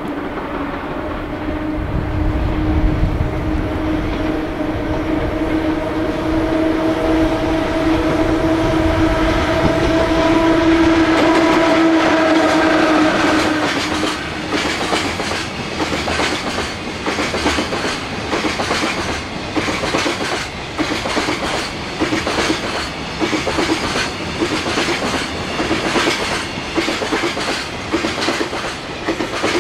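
Freight train passing: a long, steady horn tone held for about fourteen seconds, then the rhythmic clickety-clack of the wagons' wheels over rail joints as the train rolls by.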